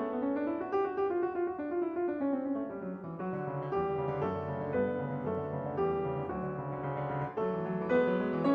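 Piano music with a steady flow of notes.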